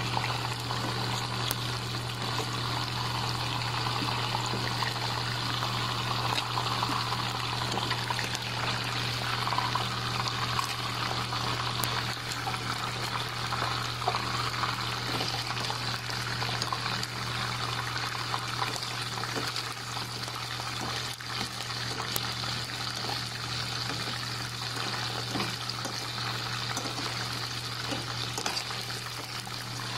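Chicken pieces deep-frying in a pot of hot oil: a steady sizzle flecked with many small pops and crackles, over a steady low hum.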